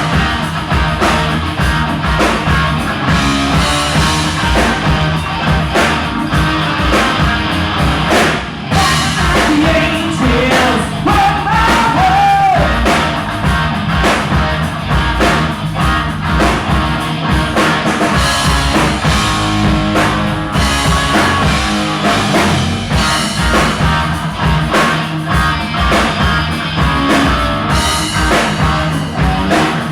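A live rock band playing at a sound check: a drum kit and electric guitar, with a voice singing at times.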